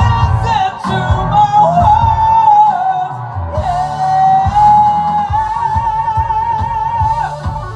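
Hard rock song: a singer holds long wavering notes over distorted electric guitar, bass and pounding drums.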